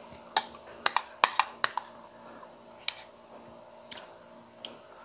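Spoon clinking against a bowl as soup is scooped out: a quick run of light clicks in the first two seconds, then a few scattered ones.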